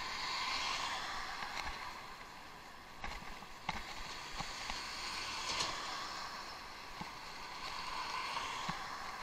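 Bicycle rolling over rough, unpaved ground: a steady hiss of tyres with scattered knocks and rattles from the bike.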